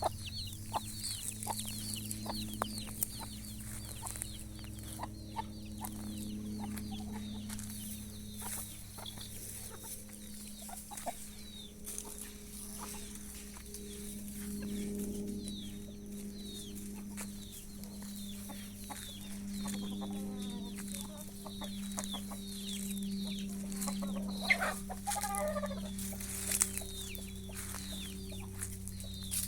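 Chickens clucking, with many short, high falling peeps throughout and a louder call about 25 seconds in, over a steady low hum and occasional sharp clicks.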